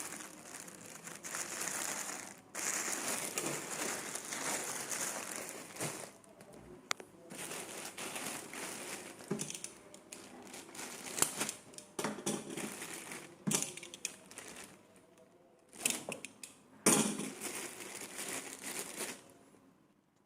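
Plastic packaging around a pair of jeans being crinkled and pulled open by hand: irregular rustling with sharp crackles, one loud crackle near the end before it goes quiet.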